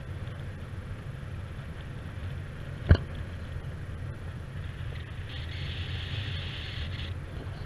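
Wind from a paraglider's flight rushing over the camera microphone: a steady low rumble with hiss. A single sharp knock comes about three seconds in, and a higher hiss rises for about two seconds near the end.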